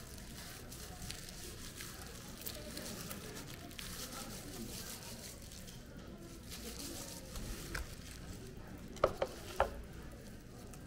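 Hands rolling a kimbap on a bamboo mat: soft rustling and small clicks over a steady background hiss. Three sharp clicks come close together near the end, as the mat and roll are set down.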